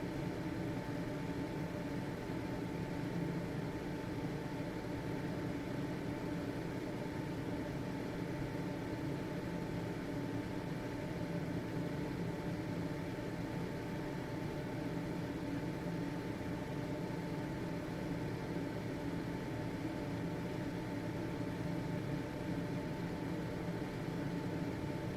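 Household ventilation fan running steadily: an even whoosh of air with a constant motor hum.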